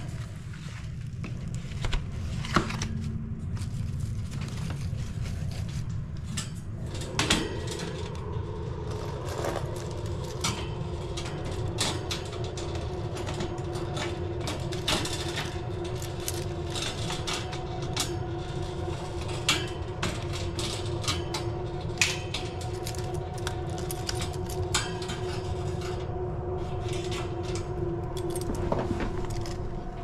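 Metal return-air filter grille being handled and latched, with repeated clicks and rattles and keys jangling. A steady hum comes in about seven seconds in.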